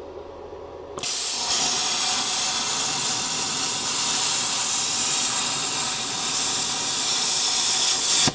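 ESAB Cutmaster 70+ air plasma cutter cutting through thick metal plate. The compressed-air arc sets in with a loud, steady hiss about a second in and cuts off suddenly at the end.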